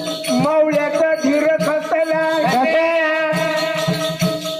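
Marathi gondhali folk music: a voice holds long notes that slide in pitch, over steady strokes on a sambal drum.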